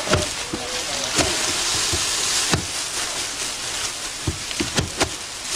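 Dense rustling and crunching of ripe rice stalks being cut by hand with sickles. Irregular sharp knocks come through it, several in quick succession near the end.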